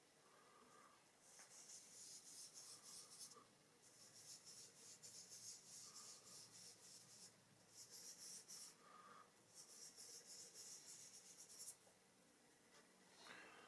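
Hands rubbing and blending soft dry pastel into thin drawing paper: a faint, scratchy swishing of rapid back-and-forth strokes, in four spells of one to two seconds each. A brief soft knock near the end.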